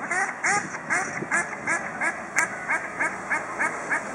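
A duck quacking in a fast, even run of short quacks, about three a second.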